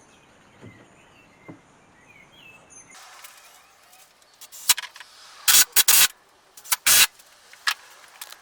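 Faint outdoor background with birds chirping, then a series of loud, irregular knocks and bangs from woodworking, starting about three seconds in.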